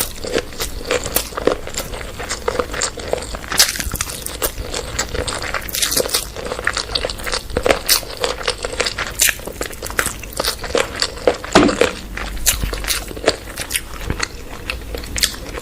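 A person eating chowmein and a chicken leg piece: continuous biting and chewing with many crisp crunches, several a second.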